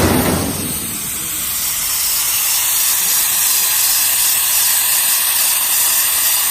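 Plasma cutter torch running on a CNC table, powered by a Hypertherm 65: a loud, steady high hiss of the plasma arc and air jet. Right at the start a lower rush sounds briefly and falls away within about a second.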